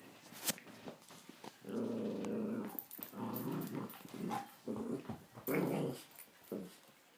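Miniature pinscher play-growling while wrestling with a toy: a string of growls, the longest about a second, with short gaps between. A sharp click sounds about half a second in.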